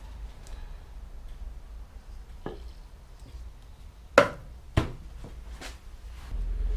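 Things being handled and set down on a workbench: a faint knock, then two loud sharp knocks about half a second apart and a fainter one after, over a low steady hum.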